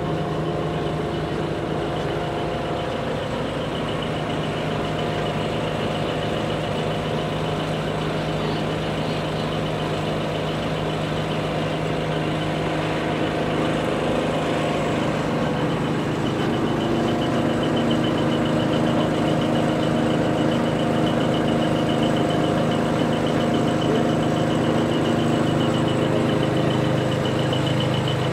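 A truck engine idling steadily, getting slightly louder after about halfway. A high, rapidly pulsing buzz joins from about halfway.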